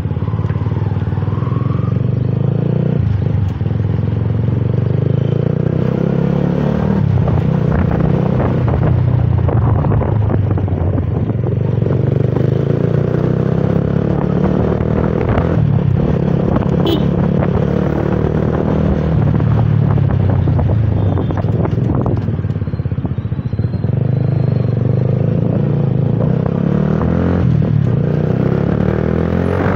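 First-version Honda CBR150R's single-cylinder four-stroke engine running while riding through traffic, its pitch rising and falling as the bike speeds up and slows.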